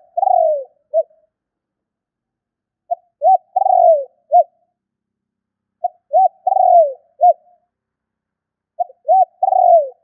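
Spotted dove cooing: a phrase of a short note, a rising-and-falling note, a long falling coo and a short final note, repeated about every three seconds.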